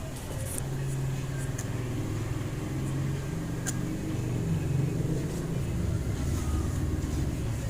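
Small aquarium's equipment giving a steady low hum that swells a little, with a few faint ticks: the strange noise coming from the tank.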